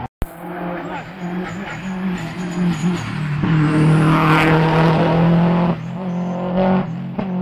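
Race car engine at high revs climbing a hill road, growing louder and passing close by about four seconds in, then dropping away; another car's engine comes in near the end.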